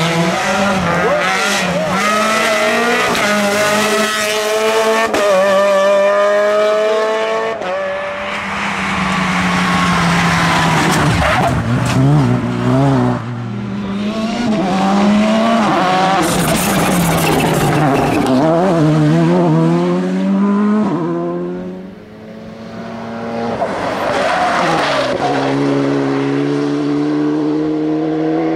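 Rally car engines at full throttle, several cars in turn. Each engine note climbs as the car accelerates, drops back at each gear change and falls away as the car slows for corners. The sound eases off briefly about three-quarters of the way through, then another car revs up.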